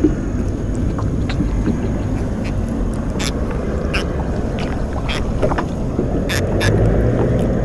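A steady low rumble, with scattered light clicks and taps as a caught fish is handled and unhooked in a small wooden boat.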